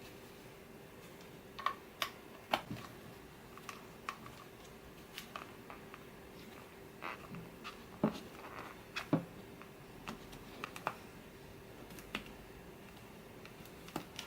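Irregular small clicks and taps of objects being handled, over a faint steady hum.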